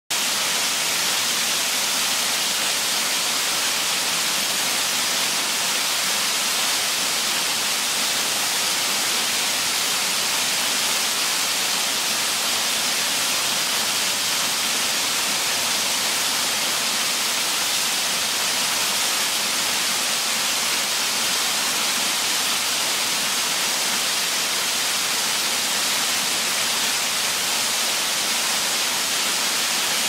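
Small waterfall falling in thin streams from a rock ledge onto rocks and a shallow pool: a steady hiss of splashing water, mostly high-pitched with little rumble.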